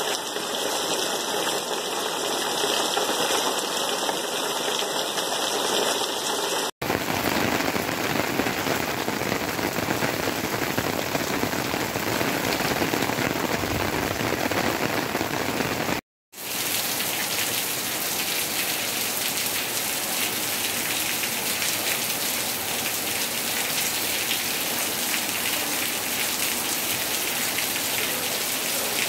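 Heavy rain pouring down steadily. The sound breaks off for an instant twice, about 7 and 16 seconds in.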